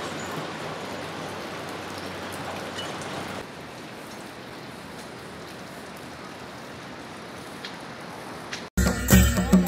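Steady rushing of the Mahakali river, a little quieter from about three and a half seconds in. Near the end it cuts off and loud music begins.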